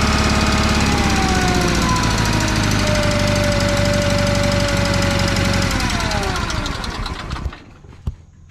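Small gasoline engine running steadily, then slowing and shutting down about seven and a half seconds in.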